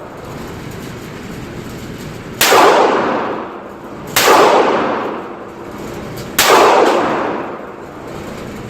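Three handgun shots fired one at a time, about two seconds apart, each followed by a long echo that dies away.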